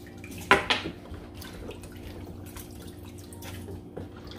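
Hands rinsing pieces of goat meat in a basin of water: one loud splash about half a second in, then smaller splashes and drips as the pieces are lifted and dropped back.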